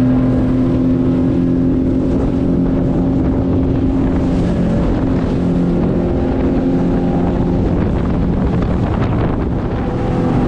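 Motorboat under way at speed, its engine running with a steady tone under the rush of water spraying off the hull and wind on the microphone.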